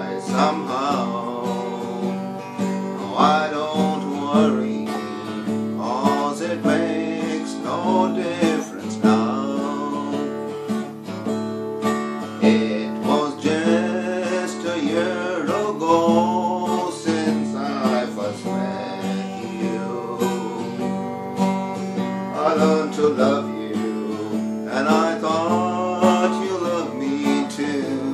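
Acoustic guitar strummed while a man sings along.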